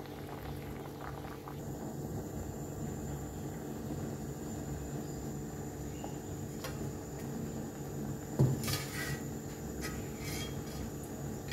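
Light kitchen clinks of pots and utensils over a steady low hum, with a louder knock and a brief scrape about eight and a half seconds in, beside a pot of curry simmering on the stove.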